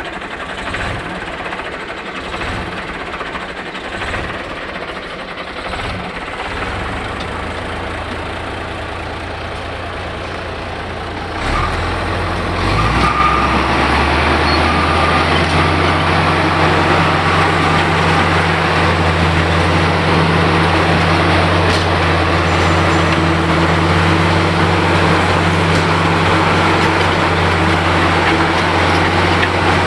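Bulldozer's diesel engine running unevenly at low speed, then picking up about twelve seconds in to a louder, steady higher speed that holds.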